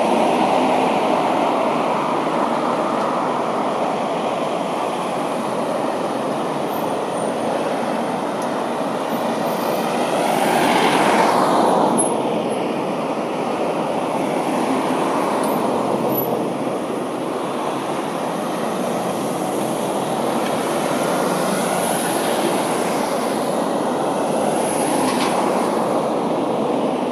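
Road traffic: a steady din of vehicle engines and tyres, swelling as a vehicle passes close about eleven seconds in.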